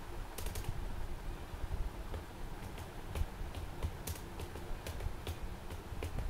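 Typing on a computer keyboard: a quick run of keystrokes about half a second in, then scattered, irregular keystrokes from about two and a half seconds on.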